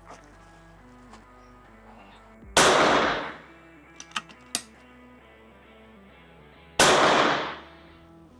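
Two shots from a Karma Red Panda PCP air rifle firing .22 pellets, about four seconds apart, each a sharp report that dies away over about half a second. A few light clicks come between them.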